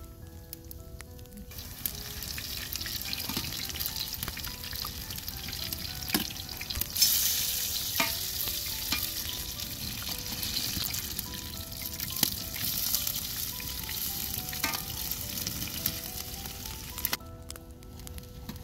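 Potato patties frying in hot oil in a metal pan: a steady sizzle, louder from about seven seconds in and dropping away near the end, with occasional clicks and knocks.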